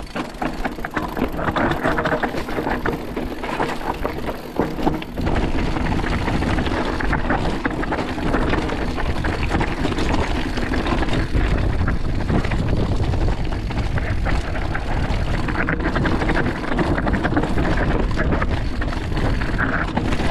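Mountain bike being ridden on a trail: continuous rolling and rattling noise, with no voices. About five seconds in it turns louder and deeper and stays that way.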